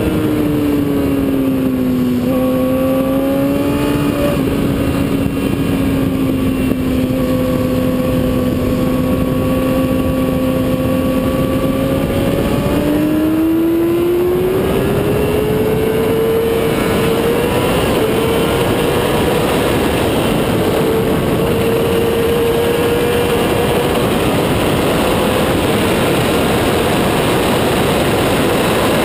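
Motorcycle engine heard from an onboard camera. The revs drop over the first couple of seconds, hold steady through a long leaned-over corner, then climb for several seconds from about twelve seconds in as the bike accelerates onto the straight, and hold high. Wind rush runs underneath and grows as the speed builds.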